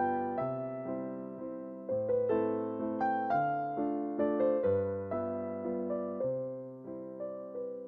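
Background music on piano: a gentle melody of struck notes over changing bass notes, each note fading after it is played.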